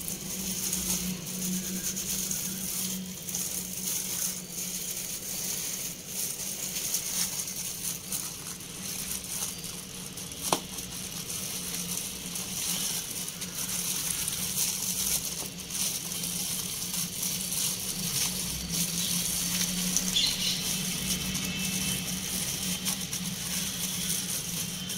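Gloved hand dredging chicken pieces in a bowl of dry flour: soft patting, pressing and rustling of the plastic glove in the flour, over a steady hiss. One sharp click about ten seconds in.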